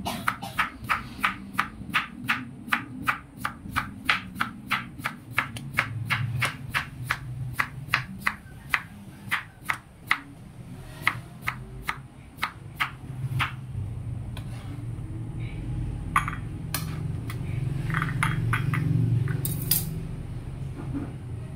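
Kitchen knife slicing a peeled cucumber on a plastic cutting board: a steady chop-chop of blade strikes on the board, about three a second. After about thirteen seconds the chopping stops, leaving a few scattered clinks and a low rumble that grows louder as the slices are moved into a ceramic bowl.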